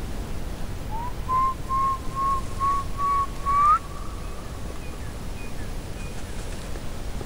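A run of about seven short whistled notes, each held near the same pitch, with the last one gliding upward. They play over a steady hiss-like noise bed, and a few faint, higher chirps follow after they stop.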